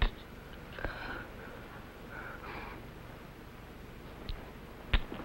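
A dying man's faint, labored breathing and gasps as he struggles to speak, with a few soft clicks.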